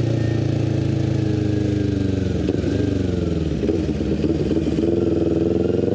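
Kawasaki Ninja 400's parallel-twin engine heard through a full aftermarket exhaust with the catalytic converter removed, running steadily while riding. About two seconds in it drops in pitch and turns rough and uneven, then rises again in pitch near the end as the bike pulls away.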